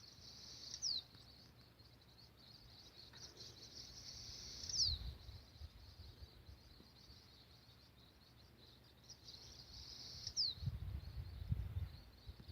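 Faint, steady high-pitched chorus of crickets, with a bird giving a single sharp falling whistle three times, several seconds apart. A few low rumbles come and go underneath.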